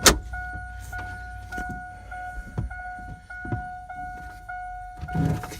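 A truck's dash warning chime repeating about twice a second, a steady tone broken by short gaps. Under it come small knocks and clicks of hands working in the dash, with a sharp click right at the start.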